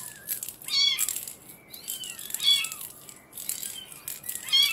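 Young kittens, 17 days old, crying in repeated short, high mews that rise and fall, several at once, with the loudest about a second in, midway and near the end. Beneath them a hand-held toy rattle is being shaken to quiet them.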